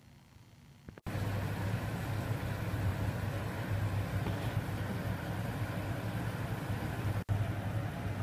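Food sizzling in an enamelled cast iron fry pan on the stove, under a steady low hum, starting abruptly about a second in with a brief break about seven seconds in.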